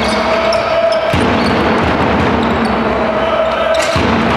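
Live basketball game sound in a sports hall: the ball bouncing and players moving on the court, under a steady wash of crowd voices, with a held droning tone that comes and goes twice.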